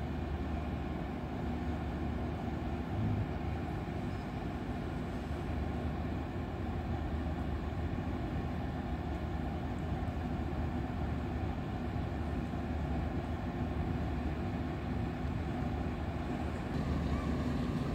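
Steady low rumble of ship diesel machinery with a constant droning hum, and a brief low bump about three seconds in.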